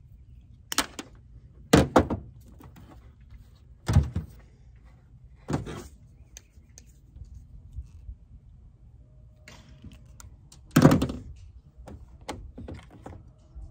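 Sharp knocks and clacks of hand tools and wire being handled on a metal boat: wire cutters and strippers working and being set down, and a plastic connector box being handled. About six loud knocks come spaced over the seconds, the loudest about eleven seconds in, with lighter clicks between.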